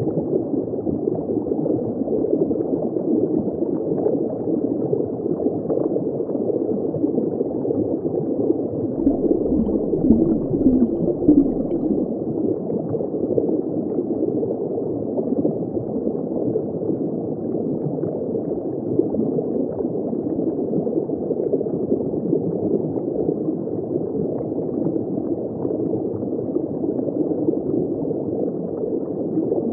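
Steady, muffled underwater wash of gurgling water, dull with no high sound in it. It swells slightly, with a low rumble, about nine to twelve seconds in.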